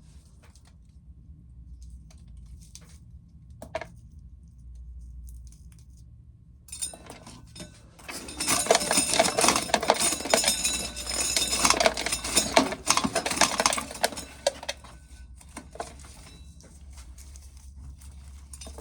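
Dried corn kernels clattering as corn is shelled: a few scattered ticks, then a dense, loud rattle of many small hard kernels for about six seconds in the middle, dying back to occasional ticks.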